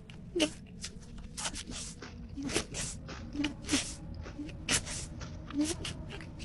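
Someone chewing a crunchy raspberry vanilla Oreo: an irregular string of short, crisp crunches, about three a second.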